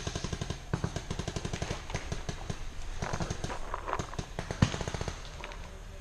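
Paintball markers firing rapid strings of shots, about ten a second, thinning to scattered pops with one louder pop near the end.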